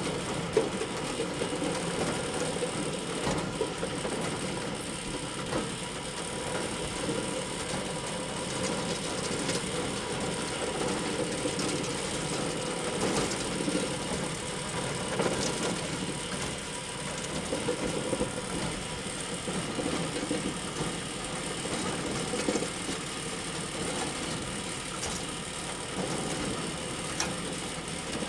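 Bale elevator running steadily: a continuous mechanical clatter and rattle from its chain conveyor and drive, with scattered sharper clicks and a thin, steady high whine.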